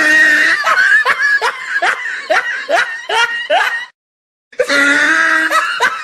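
High-pitched snickering laughter in short rising bursts, about two to three a second. It breaks off for about half a second past the middle, then starts again.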